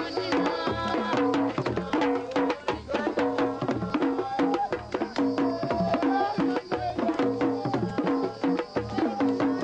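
Music carried by quick hand-drum strokes, with a bending melodic line over the rhythm.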